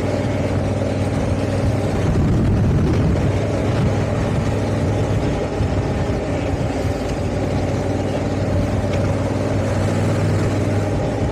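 Honda Africa Twin's parallel-twin engine running at a steady cruise under way, with wind noise, slightly louder about two seconds in.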